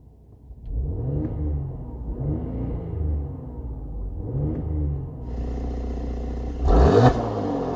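Mercedes-AMG C43's 3.0-litre twin-turbo V6 through its Performance exhaust, running low and blipped several times so the pitch rises and falls. Near the end it revs much louder and harder.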